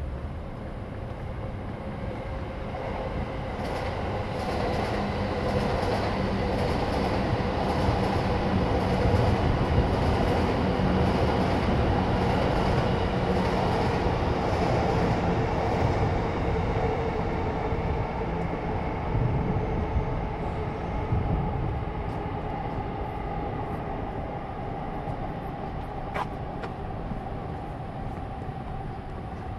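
Electric commuter train passing on the tracks beside the path. Its rumble builds over several seconds, is loudest in the middle with a steady hum, then dies away.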